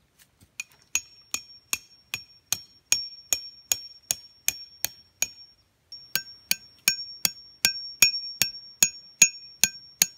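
Metal tent stake being hammered into the ground: steady strikes about two and a half a second, each with a high metallic ring, stopping briefly a little past halfway and then resuming.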